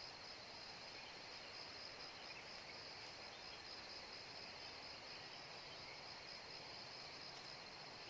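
Faint, steady insect chorus: a high, finely pulsing trill held throughout, over a soft even hiss.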